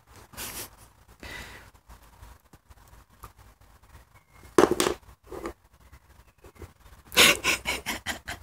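Welsh terriers sniffing and breathing close to the microphone: short puffs of breath, one loud sharp exhale about halfway through, and a quick run of panting breaths near the end.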